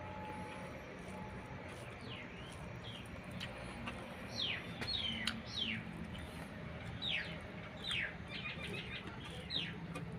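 A small bird calling: a string of short, high chirps that each drop in pitch, repeated irregularly from about two seconds in, over a steady low hum.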